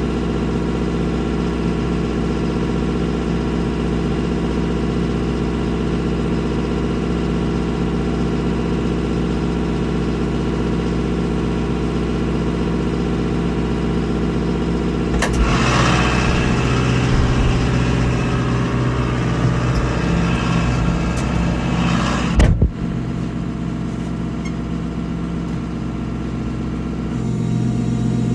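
A farm vehicle's engine running steadily. About halfway through, a louder rushing noise joins it for some seven seconds and cuts off abruptly with a short knock. The engine swells slightly near the end.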